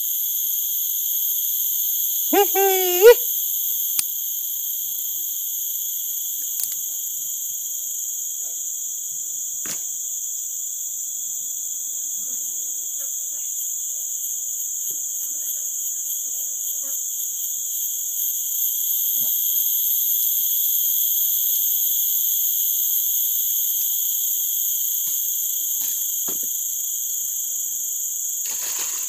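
A steady chorus of insects shrilling at several high pitches, with a few faint ticks of handling. A short rising squeak about two and a half seconds in is the loudest sound.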